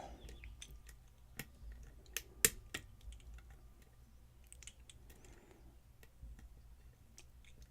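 A lock pick and tension tool working the pins of a challenge lock during picking: faint, irregular small clicks, with a few sharper clicks about one and a half to three seconds in.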